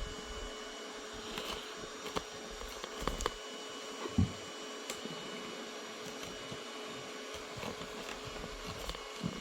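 Elegoo Neptune 4 Max 3D printer running its automatic bed-levelling routine: a faint steady hum with a thin steady tone, and scattered light clicks, with a short soft thump about four seconds in.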